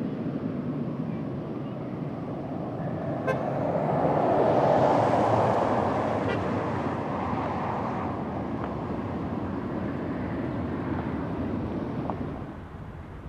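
Jet engine noise from a landing Boeing 777, swelling to a peak about five seconds in and then slowly fading away.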